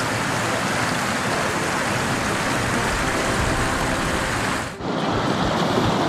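Mountain stream rushing over rocks and small cascades: a steady hiss of running water that dips briefly near the end.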